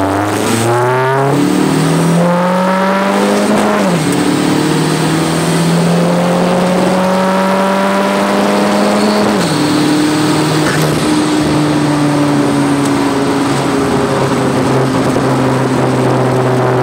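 Dodge SRT-4's turbocharged 2.4-litre four-cylinder engine at full throttle down the drag strip. Its pitch climbs steadily, drops at an upshift about four seconds in and again at about nine and a half seconds, then stays nearly level in the top gear.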